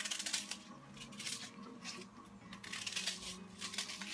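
Crisp cabbage leaves being torn and snapped apart by hand over a pot: a run of irregular crackling rips.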